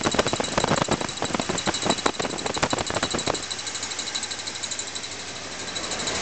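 Small-block Chevy V8 idling with a rapid ticking, sharpest in the first three seconds or so before the sound smooths out. The owner believes the tick is coming from the timing chain cover.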